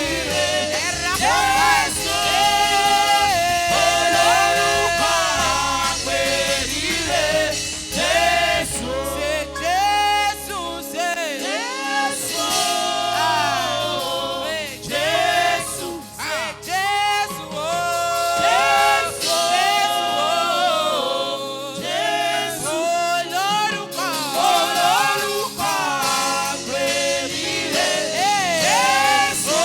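Gospel choir singing sustained, melodic lines over band accompaniment. The low bass drops away about a third of the way in, comes back thinly, then fades again in the second half.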